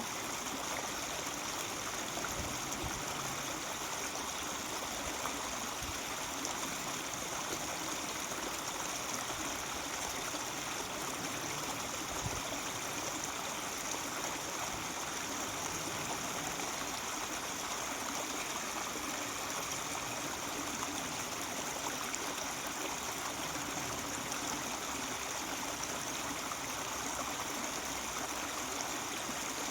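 Mountain stream babbling steadily over rocks.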